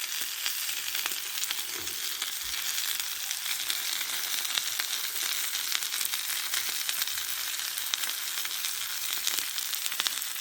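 Sirloin steak and jumbo king prawns frying in a Petromax SP32 cast-iron skillet over a campfire: a steady sizzle with many small pops and crackles.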